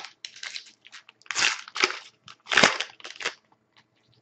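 Trading cards and their packaging crinkling and rustling as hands sort through them, in a string of short bursts, the loudest about one and a half and two and a half seconds in, stopping near the end.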